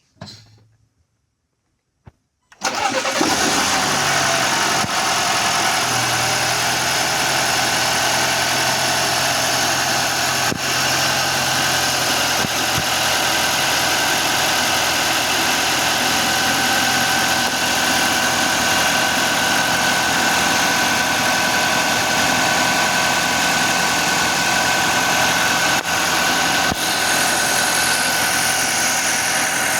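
A 2023 Audi Q5's 2.0 TFSI turbocharged four-cylinder engine comes in suddenly about two and a half seconds in and runs at a steady idle, now fitted with a new PCV valve.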